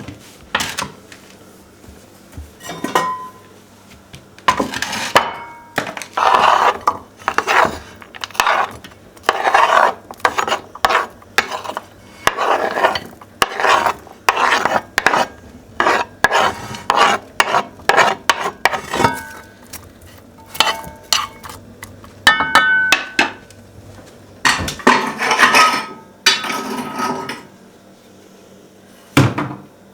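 Dishes and cutlery clattering and scraping in a run of short strokes, roughly one a second, with a few ringing clinks past the middle.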